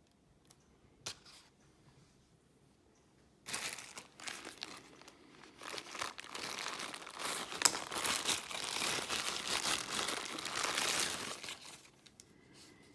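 Crinkling and rustling of handled sheet material, irregular and dense, starting about three and a half seconds in and stopping near the end, with a single click before it.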